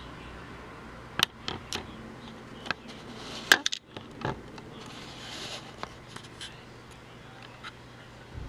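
Camera handling noise: a series of sharp clicks and rubbing from fingers on the camera body, the loudest click about three and a half seconds in, over a faint steady hum.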